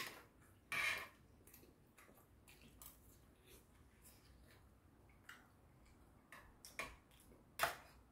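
Metal chopsticks clicking and scraping against a stainless steel divided meal tray: a few sharp, scattered clicks, the loudest near the end, with a short scrape about a second in.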